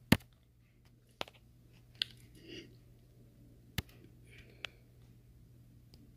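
A handful of sharp clicks and knocks, about five spread over six seconds, with a brief soft rustle around two seconds in, over a faint steady low hum.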